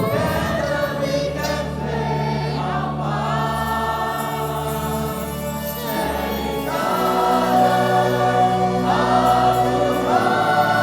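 Music with choir-like singing in long held chords, the harmony shifting every second or two and swelling a little louder in the second half.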